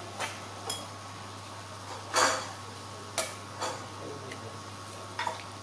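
Scattered clinks and knocks of dishes and utensils during a meal, about six in all, the loudest about two seconds in.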